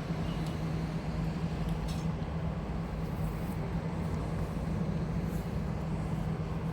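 Steady low drone of running machinery: a constant hum with a rumble beneath, unchanging throughout, with a few faint ticks.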